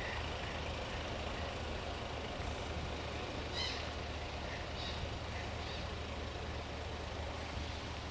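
Steady low engine hum of a moored lake cruise boat idling, with a few short high bird calls scattered through, the clearest about halfway.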